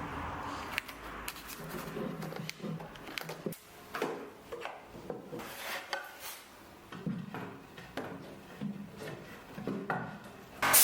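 Irregular knocks, taps and clatter of wooden pieces and tools being handled, with a louder knock at the very end.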